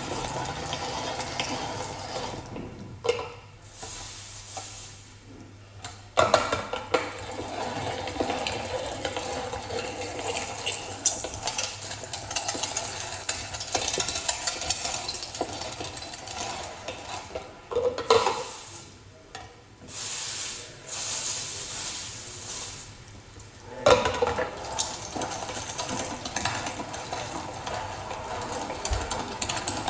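Hand-cranked manual meat grinder being turned, with a steady scraping and grinding of metal parts that stops briefly about three times.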